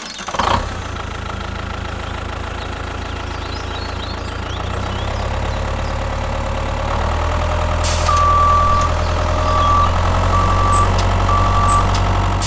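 Heavy truck engine running steadily, growing louder partway through. Near the end come four short reversing beeps, about a second apart.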